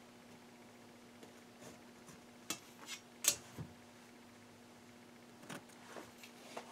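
A metal ruler being shifted and set down on a cutting table over cotton batting: a few light clicks and taps, the sharpest about three seconds in, with faint scrapes of a pencil marking along the ruler.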